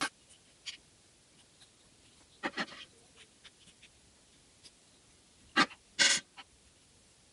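Small plastic toys being handled and set down on a tabletop: scattered light clicks and taps, a cluster about two and a half seconds in and the loudest pair of knocks near six seconds.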